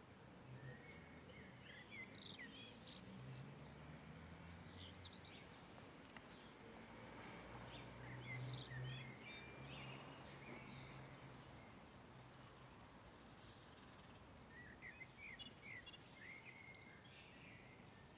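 Small birds chirping in faint, short bursts of quick twittering notes, over a low background hum.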